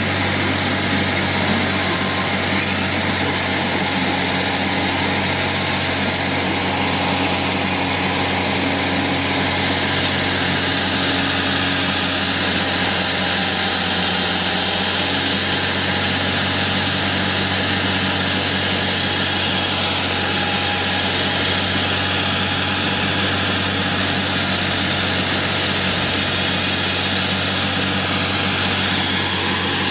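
Diesel engine of a JHD-900 walk-behind concrete saw running steadily at a constant speed, with a broad hiss over the engine note.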